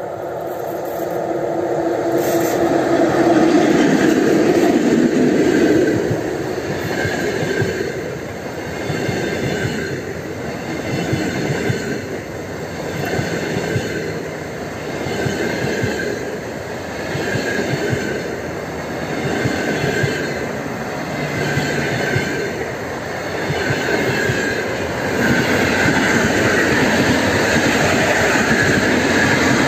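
An EP2K electric locomotive hauling a double-deck passenger train passes at speed. The locomotive's rush is loudest a few seconds in, then the coaches roll by with a rhythmic clatter of wheels over rail joints, a beat about every one and a half to two seconds. The noise swells and steadies again near the end.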